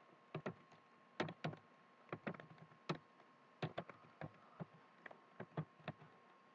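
Typing on a computer keyboard: irregular keystroke clicks, about three a second with short pauses, as a short line of text is typed.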